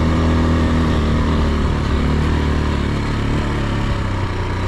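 AKT TTR 200 trail motorcycle's single-cylinder four-stroke engine running at a steady pitch under way, then easing off and going a little quieter about halfway through as the bike slows.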